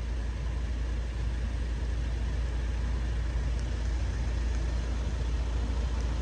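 Steady low rumble with an even hiss of outdoor background noise, with no alarm tones or train.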